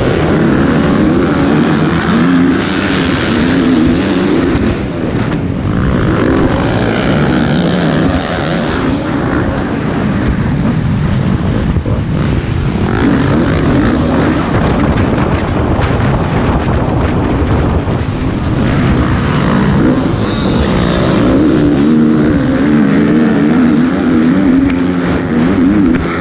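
Motocross dirt bike engine heard close up from onboard, revving up and dropping back repeatedly as the rider works the throttle and gears, with other dirt bikes running just ahead.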